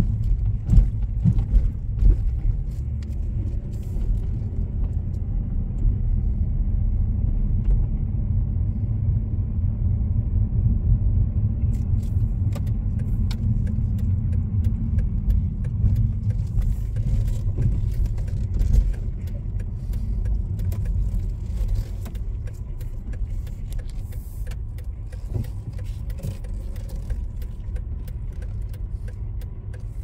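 Car driving: steady low rumble of engine and tyres, with scattered light clicks and rattles.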